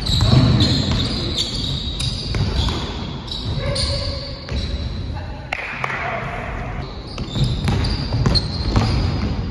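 Basketball bouncing on a hardwood gym floor and sneakers squeaking as players cut and move during a pickup game, with irregular thuds throughout.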